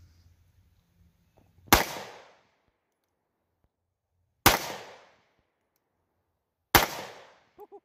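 Three shots from a short-barrelled .380 ACP pistol firing Buffalo Bore 90-grain rounds, each followed by a short echo. The shots come a little over two seconds apart.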